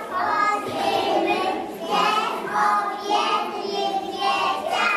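A group of small children, about three years old, reciting a verse together in unison in a chant close to singing.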